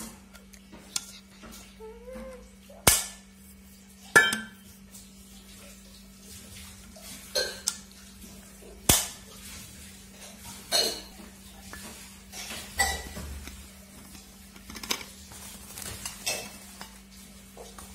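A Milton Thermosteel stainless steel flask and its plastic cup-cap being handled, giving a string of sharp clinks and knocks about every one to two seconds. A faint steady hum runs underneath.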